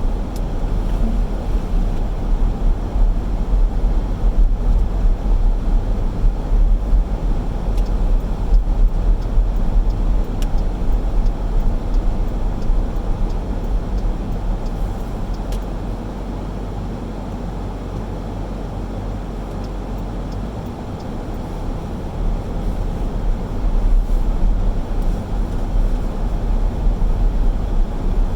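Car driving through town: a steady low rumble of engine and tyre road noise. It eases off for several seconds past the middle, then picks up again.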